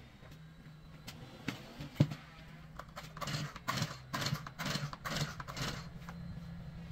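Brush cutter engine and drive shaft being handled on a concrete floor: a sharp knock about two seconds in, then a run of short scraping, rattling noises about two a second, over a steady low hum.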